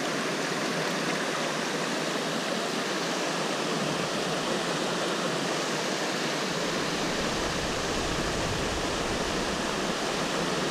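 Steady rush of the Garona, a mountain river running full, heard close by. A low rumble joins the water noise about seven seconds in.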